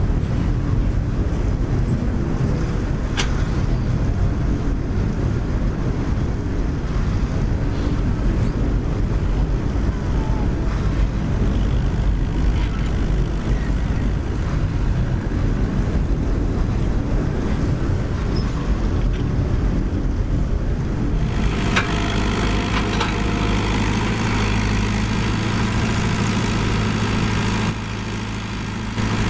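Komatsu PC75UU mini excavator's diesel engine running steadily as the machine digs and moves dirt, a continuous low drone. About two-thirds of the way through, the sound shifts to a more even hum with a hiss on top.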